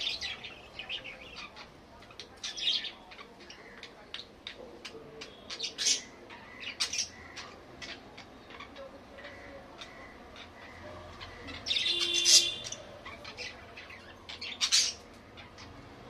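Pet budgerigars chirping and chattering: scattered short, high calls, with a louder, longer call about twelve seconds in and another loud one near the end.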